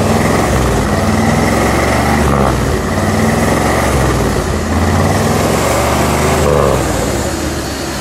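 1957 Ford Thunderbird's factory supercharged 312 cubic inch F-code V8 running loudly, its exhaust note rising and falling a few times as it is revved.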